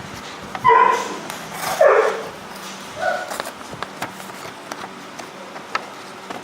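Dogs yipping and whining in a few short calls, one sliding down in pitch, with faint light clicks in between.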